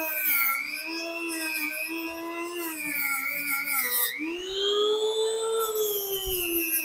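Older corded Dremel rotary tool running at high speed with a round abrasive wheel sanding carved wood, a steady high-pitched whine. The pitch sags a little as the wheel is pressed into the wood. About four seconds in it dips sharply, then climbs higher and slowly eases back down.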